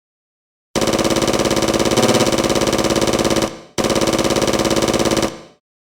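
Rapid-fire machine-gun sound effect in two bursts: a rattle of about three seconds, then after a short break one of about a second and a half. Each ends abruptly.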